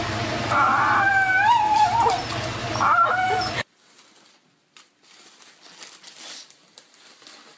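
Small terrier whining in long, wavering high-pitched tones while it strains to drag a stick crosswise through a narrow door gap. The whining cuts off suddenly about three and a half seconds in, leaving faint rustling and a single sharp click.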